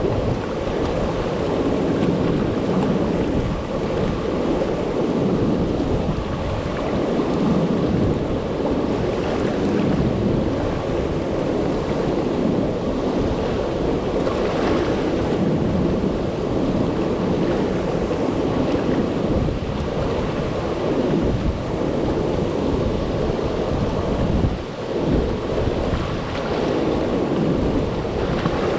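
River water pouring over a low-head dam and churning through the rapids below it: a steady, low rushing of whitewater.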